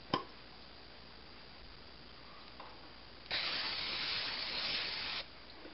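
Aerosol cooking-oil spray hissing from a can into a nonstick skillet, one steady burst about two seconds long that starts and stops sharply. A small click comes near the start.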